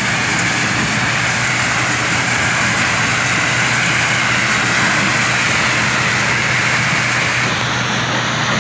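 Stone crushing plant machinery running: a steady, dense mechanical noise of crushers and conveyors, with a low steady hum underneath.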